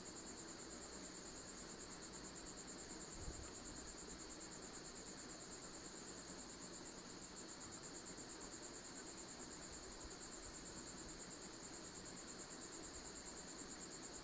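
Faint, steady high-pitched trill with a fast, even pulse, over low background hiss. A soft low knock about three seconds in.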